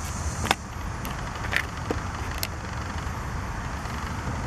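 Handling noise from a handheld camera: three sharp clicks, about half a second, a second and a half, and two and a half seconds in, over a steady low rumble.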